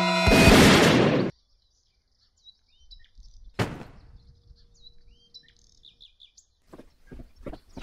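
Cartoon gunshot sound effect: a loud blast that cuts the music off, its noise ringing for about a second before stopping abruptly. After a moment of silence, birds chirp, with a single sharp thud about three and a half seconds in.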